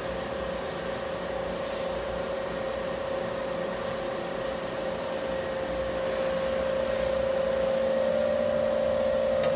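Steady hum of a running CNC milling machine, with a constant mid-pitched whine over it that gets a little louder in the last few seconds.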